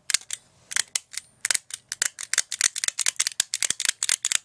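Mini stapler squeezed over and over, snapping shut empty: a fast, uneven run of sharp clicks, about six a second.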